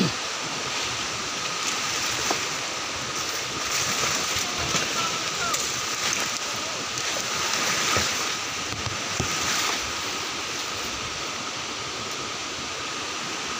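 Steady rush of flowing water, with a faint thin high tone running through it.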